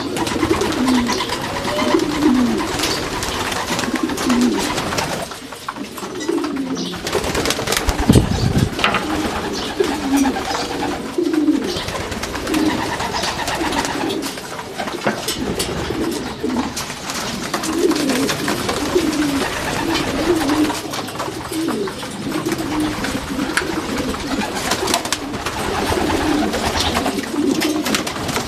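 A flock of racing pigeons cooing in a loft, their warbling calls repeating over one another without a break, with wings flapping now and then. A low thump about eight seconds in.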